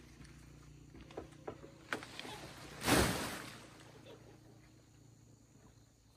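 A few knocks of footsteps on a bamboo jetty, then an armful of banana leaves thrown onto pond water lands with a rushing splash about three seconds in, the loudest sound, fading away after it.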